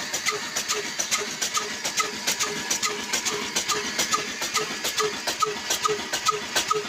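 Old black 22 hp Ruston Hornsby-type diesel engine running steadily, with a big flywheel belt-driving a flour mill. It makes an even, rhythmic beat of about three pulses a second, with sharp mechanical ticks.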